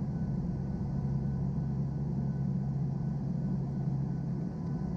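Turboprop aircraft engines and propellers droning steadily, heard from inside the cabin: a constant low hum with faint steady higher tones above it.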